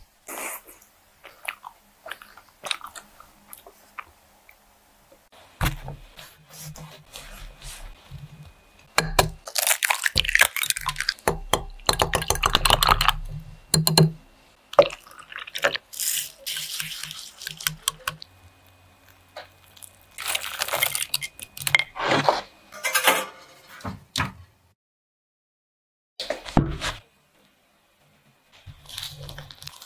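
Kitchen preparation sounds in short bursts: a wire whisk beating eggs in a glass measuring cup, with rapid clicking and sloshing, among other utensil and liquid handling noises. There is a brief silent gap near the end.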